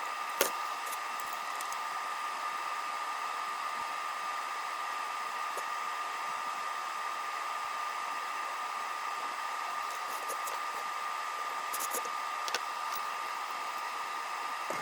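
Steady whirr of a small electric blower motor with a constant high-pitched whine, with a few faint light clicks.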